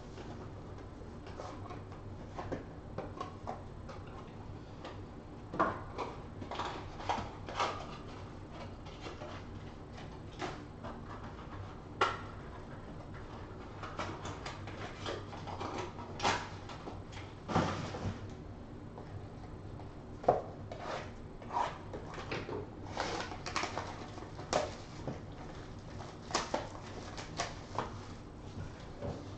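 Small cardboard trading-card boxes being handled on a table: irregular taps, knocks and scrapes as they are picked up, moved and set down, over a faint steady hum.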